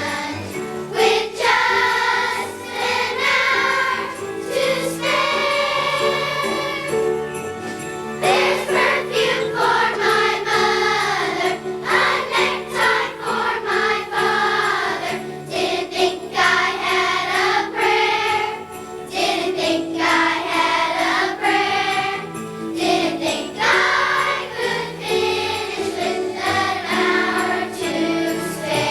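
Children's choir singing a Christmas song with jingle bells shaken in time.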